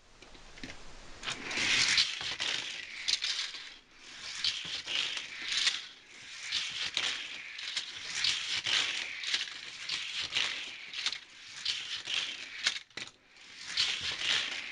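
Die-cast Hot Wheels toy trains with metal bases clattering and rattling as they run along plastic Hot Wheels track and through a loop. The clatter comes in uneven swells about every second, with sharp clicks as the cars hit track joints and knock into each other.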